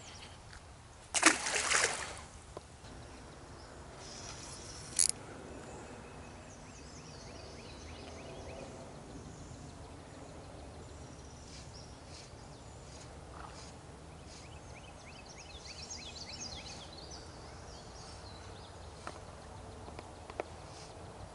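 A splash in the river about a second in, the loudest sound, as the just-caught shad drops back into the water. After it comes a short sharp knock near five seconds, then scattered high chirps over a quiet steady outdoor background.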